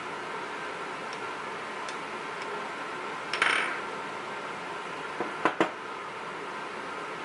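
Small metal lock pins clinking on a hard surface: a short jingling clatter about three and a half seconds in, then three sharp clicks a couple of seconds later, over a steady hiss.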